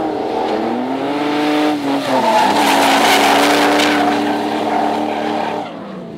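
Engines of two drift cars held at high revs in a tandem slide, one of them a BMW E30 fitted with an E39 M5 V8, with tyres screeching. The engine pitch falls and climbs again about two seconds in, and the sound is loudest through the middle before dropping away near the end.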